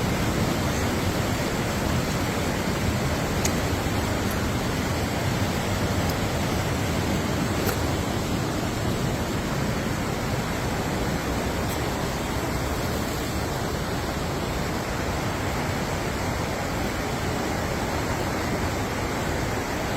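Steady rushing of a fast river running over rocks, an even, unbroken wash of water noise.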